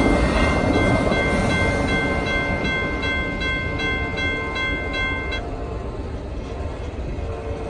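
Amtrak Superliner passenger train rumbling past and fading as its last cars go by and it pulls away. A grade-crossing bell rings steadily over it and stops about five seconds in.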